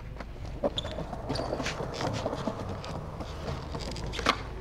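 Skateboard rolling across stone paving tiles, its wheels clicking over the tile joints in an uneven patter, with a sharper knock near the end.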